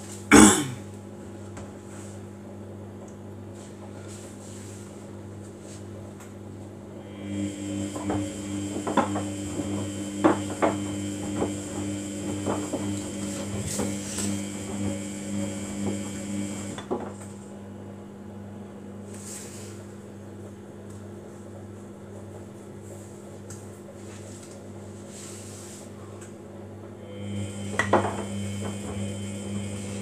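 Samsung front-loading washing machine in its wash cycle: the drum motor turns the wet load for about ten seconds with light clattering knocks, pauses for about ten seconds, then starts turning again near the end. A steady low hum runs under it, and there is one sharp click right at the start.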